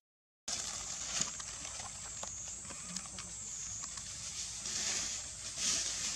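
Macaques moving and feeding in dry leaf litter: scattered light crackles and rustles over a steady high-pitched insect drone, with louder rustling near the end. The sound drops out completely for about half a second at the start.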